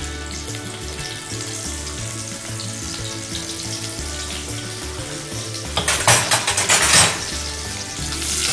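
Small whole peeled onions frying in hot oil in a pot, a steady sizzle. About six seconds in the sizzling briefly gets louder for about a second.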